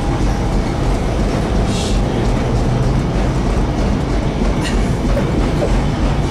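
Old Tatra tram running, heard from inside the passenger saloon: a steady, loud rumble of wheels on the rails and the car body, with one sharp click about two-thirds of the way through.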